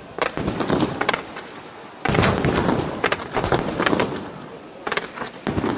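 Fireworks display: aerial shells bursting in rapid volleys of sharp reports with dense crackling, a fresh loud volley starting about two seconds in and another near the end.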